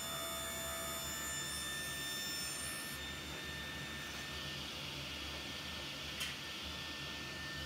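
Table saw running steadily while a walnut board is pushed through the blade with a push stick, with one short click about six seconds in.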